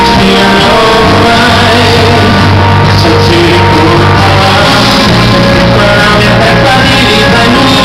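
Live band music with a male lead singer singing into a handheld microphone, recorded very loud.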